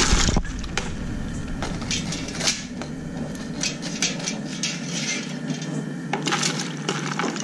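Metal cookware clattering and clinking as a batch of freshly boiled crabs is handled between a crab cooker and a tub of icy water: a loud knock at the start, then scattered clinks and rattles, with a steady low rumble underneath that fades about halfway through.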